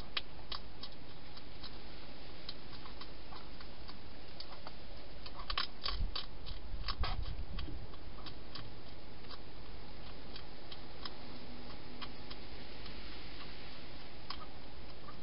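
A wild hedgehog crunching dry food: irregular sharp clicks and crunches, thickest with a few low thumps around six to seven and a half seconds in, over a steady hiss.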